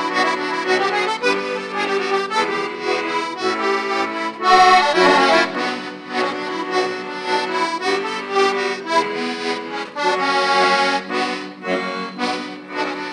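Small button accordion playing a solo instrumental interlude between the verses of a Slovak folk song: a melody over a sustained bass and chords.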